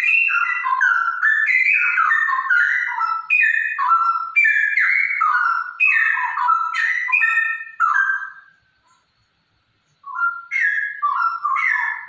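A female straw-headed bulbul (cucak rowo) singing: a loud, fast run of whistled notes that jump up and down in pitch. It stops for about a second and a half past the middle, then resumes briefly near the end.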